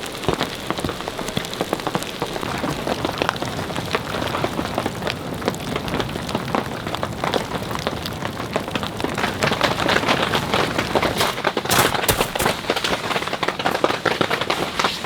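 Steady rain falling, with dense individual drop hits close by. It grows a little heavier about two-thirds of the way through.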